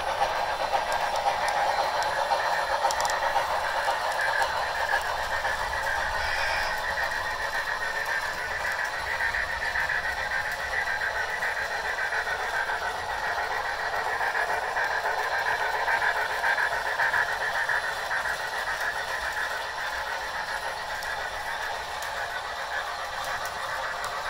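Sound decoders of three DCC model steam locomotives (a Bachmann GS4, a Bachmann Niagara and a Berkshire) playing steam-engine running sounds through their small speakers, with the trains' wheels rolling on sectional track: a steady, thin-sounding mix with no low end.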